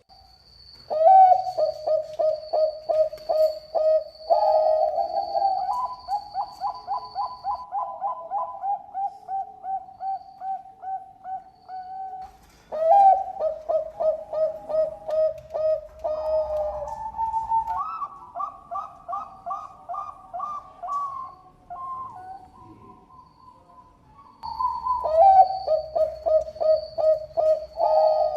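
Zebra dove (Bangkok-type perkutut) cooing: three long phrases of rapid, rhythmic coos, about three notes a second, with the pitch stepping up partway through each phrase.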